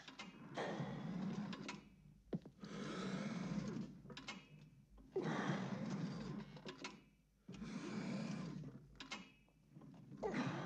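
A man straining at a weight-stack bench-press machine: five long strained pushes, each a noisy groaning effort mixed with the stack sliding on its guide rods, about two and a half seconds apart.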